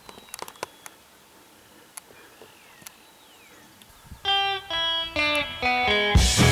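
A pause in a rock song, with only faint scattered ticks, then a solo guitar plays a run of about eight single plucked notes, mostly stepping down in pitch, before the full band comes back in near the end.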